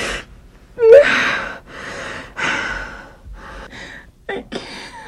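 A woman crying: a short rising whimper about a second in, then heavy, gasping sobbing breaths that grow fainter toward the end.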